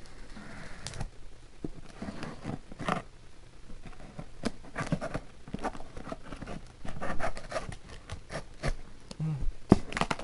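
Scissors slitting and scraping along packing tape on a cardboard box, in a run of irregular scratches, clicks and rustles of tape and cardboard.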